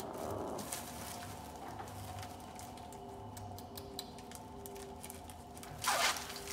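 Small clicks and taps of plastic tubes and labware being handled in a lab hood over a steady low hum. A short, loud whoosh comes about six seconds in.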